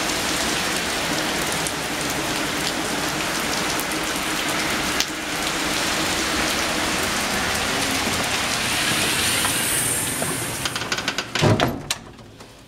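Heavy rain pouring steadily onto trees, lawn and a porch roof. Near the end the rain sound drops away, and a few sharp knocks and a thump are heard.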